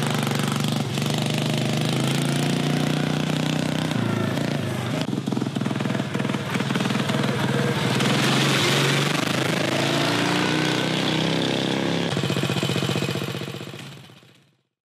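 Small four-stroke go-kart engine running under throttle as the off-road kart drives, its pitch rising and falling. About twelve seconds in it changes to a choppier, evenly pulsing run, then fades out near the end.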